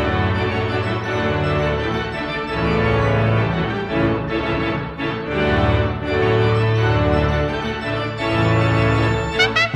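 Instrumental music: sustained organ-like chords over a low, moving bass line. Near the end, quick rising glides enter in the upper range.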